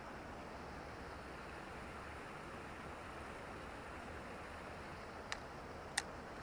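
Steady outdoor background hiss, with two short sharp clicks about five and six seconds in, the second louder.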